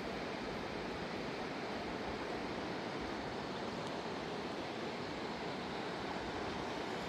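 Fast-flowing mountain river rushing, a steady, unbroken wash of water noise.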